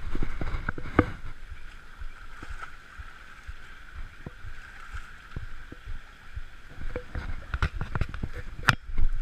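Steady rush of flowing river water with a low rumble, broken by scattered sharp knocks and clicks, a cluster of them near the end, the loudest just before it closes.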